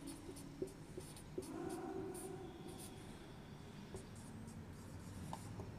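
Dry-erase marker writing on a whiteboard: short, faint, scratchy strokes with a few small clicks as the pen meets the board. A faint low hum sounds in the background about one and a half to three seconds in.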